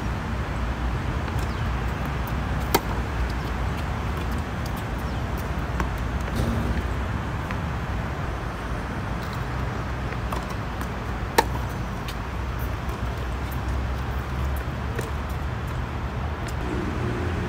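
Steady low outdoor rumble, like distant traffic, with two sharp knocks about three seconds and about eleven seconds in and a few fainter ticks.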